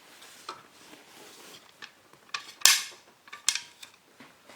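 Small metal hardware (bolts, washers and nuts) clinking as it is handled for bolting down a heated bed: a few sharp clinks, the loudest about two and a half seconds in and another about a second later, with lighter ticks between.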